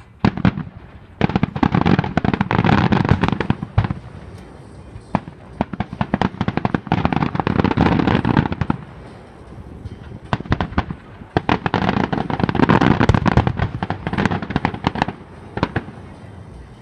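Fireworks display: rapid cracks and bangs in three loud volleys, with scattered pops between them.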